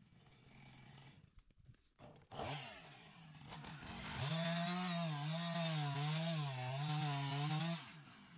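Two-stroke chainsaw blipped briefly, then held at full throttle cutting hemlock wood. Its high engine note rises and falls about once a second as the chain loads in the cut, then cuts off abruptly near the end.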